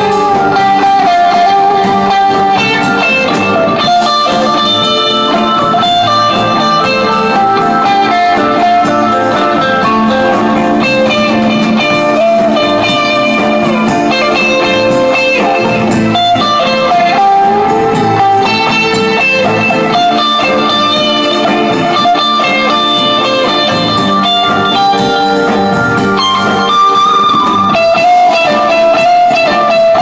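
Telecaster-style electric guitar played through a combo amplifier: a bluesy lead line of sustained notes with several string bends.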